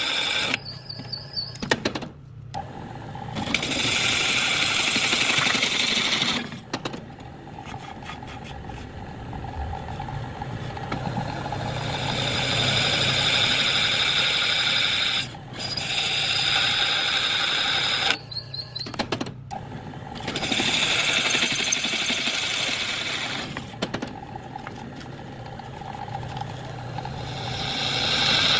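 Machine tool drilling cooling holes in a metal disc. Loud cutting spells of a few seconds, each with a steady high-pitched ring, alternate with quieter running of the machine.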